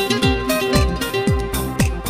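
Background music with a steady drum beat, about two beats a second, over held melodic notes.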